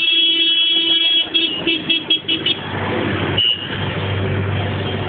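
A vehicle horn held in one long blast, then about five quick toots that stop about two and a half seconds in; after that a vehicle engine runs with street noise.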